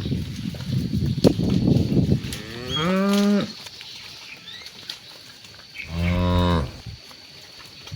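Cattle mooing: two short moos about three seconds apart, the second one lower. Before them comes a low, rough rumble with scattered clicks.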